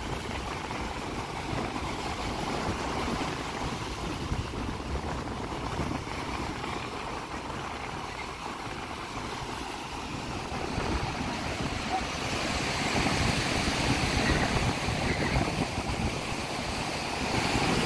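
Sea surf breaking and washing up the beach, with wind buffeting the microphone. The surf hiss grows louder about two-thirds of the way through.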